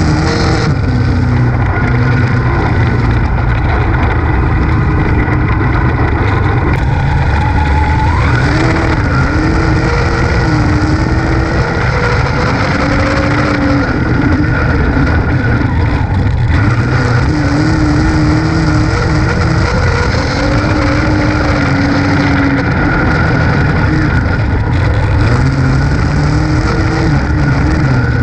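Dirt-track race car's engine at racing speed, heard from inside the cockpit. Its note rises and falls every few seconds as the throttle goes on and off around the oval.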